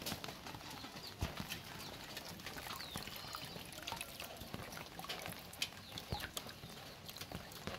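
Water dripping and splashing off cupped hands full of wriggling tengra catfish fry into a metal basin: many small, irregular drips and taps.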